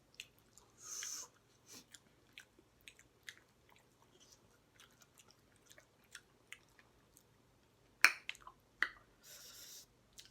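Close-up chewing and biting of someone eating chicken legs: small wet clicks and smacks, with two short hissing sounds, one about a second in and one near the end, and a sharper click about eight seconds in.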